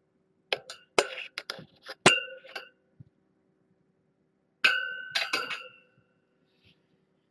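Cat wand toy being swished and knocked about, giving a series of sharp metallic clinks with a short ring. There is a scatter of them in the first three seconds, then a louder cluster about two-thirds of the way in.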